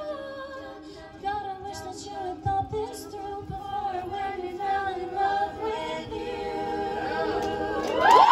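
Women's a cappella group singing the final held chords of a song, a female soloist's voice over the sustained backing voices. Near the end the audience breaks into loud cheering and whoops.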